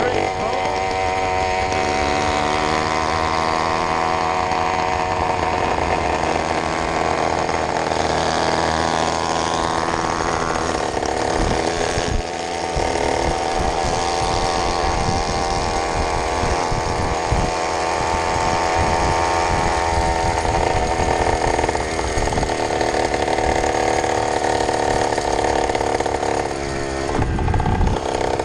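80cc two-stroke motorized-bicycle engine running under way, its pitch shifting up and down several times with the throttle, with wind rushing over the microphone.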